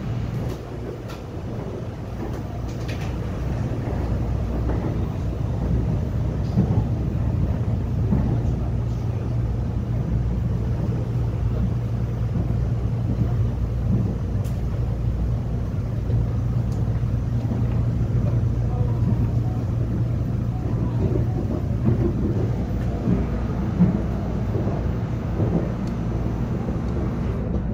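Subway electric multiple unit running between stations, heard from inside the passenger car: a steady low hum and rumble that grows louder over the first few seconds, with a few faint clicks.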